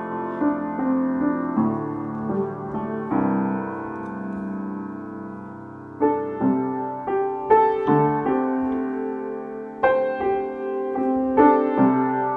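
Solo piano playing a slow free-tonal improvisation: chords struck one after another and left to ring. Near the middle one chord is held and fades for about three seconds before a new run of struck chords.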